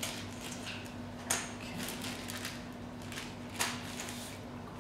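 Small plastic parts and a plastic bag being handled on a wooden workbench: light rustling and clicking, with two sharper taps about a second and a quarter in and again about three and a half seconds in, over a faint steady hum.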